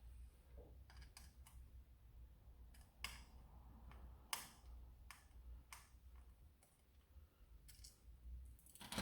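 Near silence with faint, scattered clicks and taps of hard plastic blaster parts being handled and worked apart.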